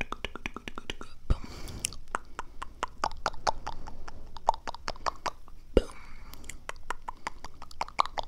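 ASMR mouth sounds: a quick run of wet mouth clicks and smacks, several a second, with a short hissing stretch about a second and a half in.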